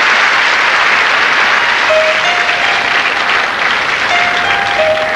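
Audience applauding, the clapping thinning out as music comes in with a few held notes about two seconds in.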